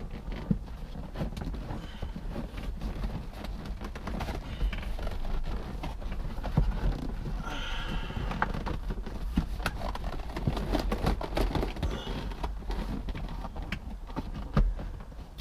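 Irregular knocking, clicking and rubbing of parts being handled and fitted inside a car's stripped dashboard, with a short squeak about eight seconds in.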